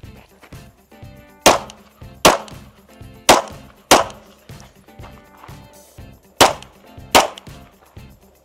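Six pistol shots in three pairs, two shots at each target, each pair under a second apart with a short echo after every shot.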